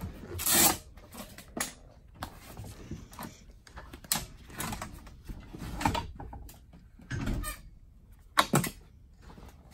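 Scattered clunks, clicks and rustles as a bass boat's bow-mounted trolling motor is handled and stowed, with flip-flop footsteps on the carpeted deck. The sharpest knocks come about half a second in and again about eight and a half seconds in.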